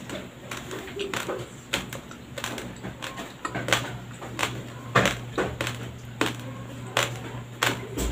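Close-miked chewing of a mouthful of raw, uncooked white rice: dry grains cracking between the teeth in sharp, irregular crunches, about two or three a second.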